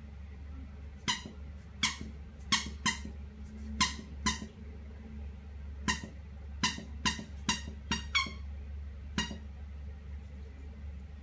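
A squeaky dog toy squeezed repeatedly in a small dog's mouth: about a dozen short, sharp squeaks in irregular bunches that stop a couple of seconds before the end.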